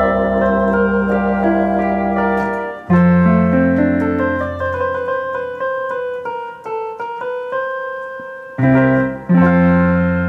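Piano voice of a 1977 Wersi Helios electronic organ being played as a test of its piano section: chords over held bass notes with a melody on top, each note dying away. A new low chord comes in about three seconds in and again twice near the end.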